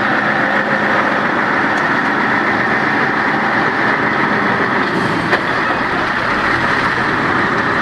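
Mercedes-Benz Actros 4160 heavy-haulage truck's V8 diesel running steadily as the rig with its low-loader trailer rolls slowly past, with one short sharp click a little past five seconds in.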